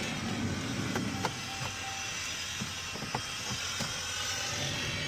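Steady low mechanical rumble, with a few light clicks and one brief faint beep a little under two seconds in.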